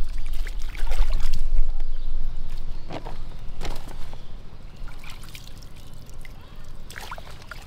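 Water trickling and sloshing, with scattered knocks, over a low rumble that eases after about two seconds.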